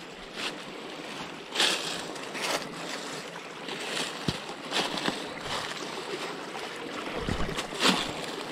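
Footsteps crunching through dry fallen leaves, one every second or so at an uneven pace, over a steady hiss.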